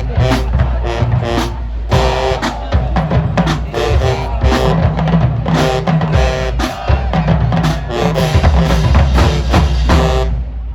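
Marching band brass and drumline playing a dance tune, with heavy bass drum under the horns; the music cuts off near the end.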